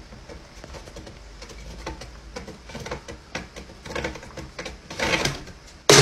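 Faint irregular clicks and ticks in a small room, then a sudden loud crash near the end as a wall-hung picture frame falls.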